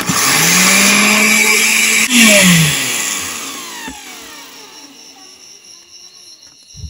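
Kitchen blender switched on with a load of ingredients and water, its motor running steadily for about two seconds and rising slightly in pitch. It is then switched off and winds down with a falling pitch. A sharp knock comes near the end.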